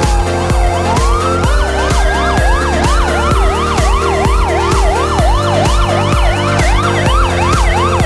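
Fire-engine-style siren sweeping rapidly up and down about twice a second, with a slower wail overlapping it near the start, over background music with a steady beat.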